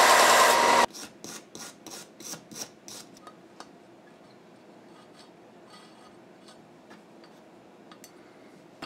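Bench belt sander grinding the end off a steel scope-base screw to shorten it, stopping abruptly about a second in. Then a couple of seconds of short scraping strokes, about four a second, fading into light handling of metal parts.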